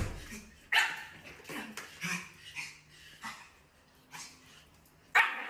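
A small puppy yipping and whimpering in a series of short, high-pitched calls, about half a second to a second apart, with a louder call near the end.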